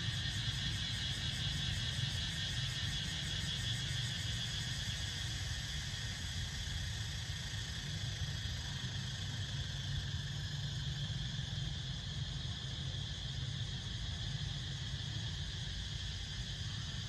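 Steady chorus of forest insects, a high, fast-pulsing trill, over a low rumble.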